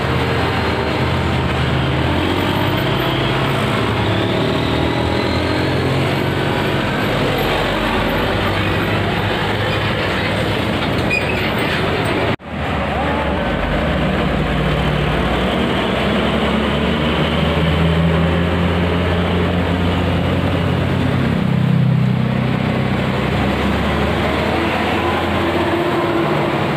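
Diesel engines of heavy vehicles running with road noise, a steady deep hum. It breaks off abruptly about halfway through, then goes on as large coach buses drive past, swelling louder twice in the second half.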